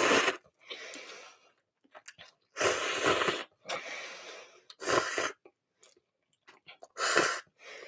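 A person eating curry cup noodles: short, noisy slurps, four in all about two seconds apart, with quieter chewing between.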